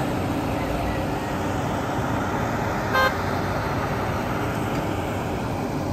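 Caterpillar hydraulic excavator's diesel engine running steadily as it digs earth and loads a dump truck. A short horn toot sounds once, about three seconds in.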